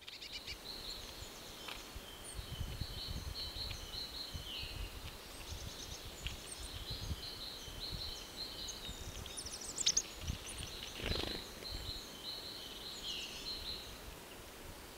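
Small woodland songbirds calling and singing, with short high chirps and trills throughout and a brief cluster of sharper notes about ten seconds in, over a faint low rumble.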